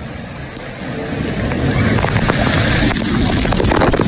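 An artificial waterfall pouring down onto a phone filming from a tube, the falling water rushing and splashing, with many drops striking the phone right at the microphone. It grows louder from about a second in and is loudest near the end.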